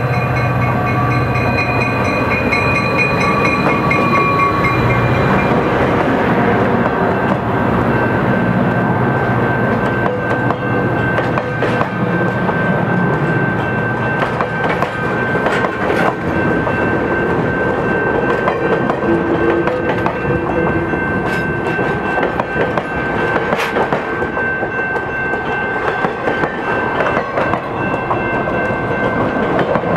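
EMD F40PHR diesel locomotive passing close by, its engine drone and a high whine fading over the first few seconds. Passenger cars then roll past, with repeated wheel clicks over rail joints and a steady high ring from the wheels and rails.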